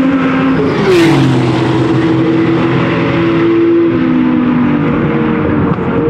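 Several racing car engines at high revs, their pitch dropping in steps as they shift down, about a second in and again near five seconds in. A brief sharp crackle comes about a second in.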